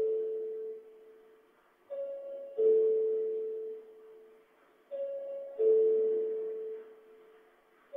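Two-note electronic ding-dong chime, a higher note then a lower one, each ringing out and fading, repeating about every three seconds.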